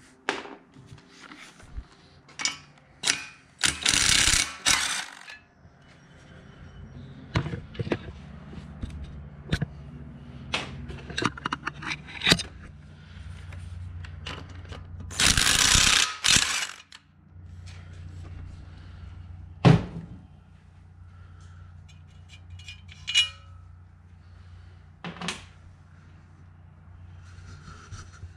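Cordless impact wrench hammering in two bursts of about a second each, about four seconds in and again about fifteen seconds in, as it takes the bolts out of the hold-down bracket in the valley of a small-block V8. Between the bursts come scattered clicks and clinks of sockets, bolts and tools being handled.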